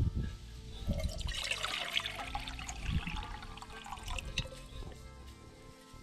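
Water poured from a stainless steel bottle into a stainless steel pot, splashing and trickling for a couple of seconds starting about a second in, with a few knocks of the metal bottle and pot being handled.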